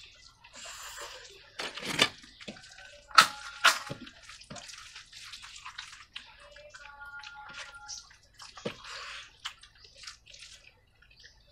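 Wet squelching of hands mashing rice soaked in kadhi on steel plates, mixed with mouth-full eating and lip smacks. A few sharp, louder smacks come a little past the middle.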